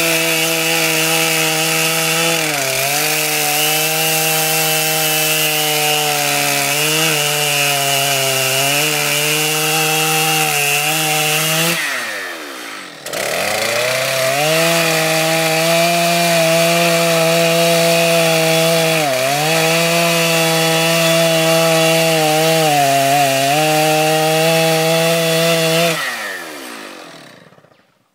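Chainsaw at full throttle ripping a thin board lengthwise off a squared timber, its pitch sagging briefly under load from time to time. About twelve seconds in the engine falls away and then revs back up into the cut. Near the end it winds down and stops.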